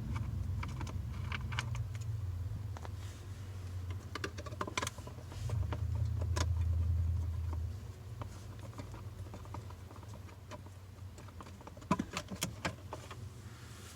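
Scattered small clicks and rattles of a screwdriver and plastic trim as the screws holding the steering column cover are worked out, with a cluster of sharper clicks near the end, over a steady low hum that swells for a couple of seconds midway.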